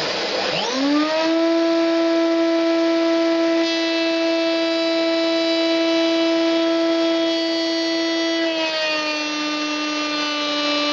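Wood router's motor starting about half a second in, its whine rising quickly to a steady high pitch over the rushing noise of a vacuum cleaner running for dust extraction. The whine drops slightly in pitch about eight and a half seconds in.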